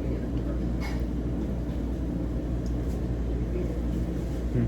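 Steady low background rumble, with a faint click about a second in.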